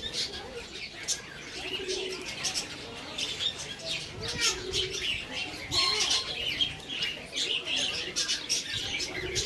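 A flock of budgerigars chattering with fast, overlapping high chirps, and wings flapping as birds fly across the aviary. A lower, wavering call recurs every couple of seconds beneath the chatter.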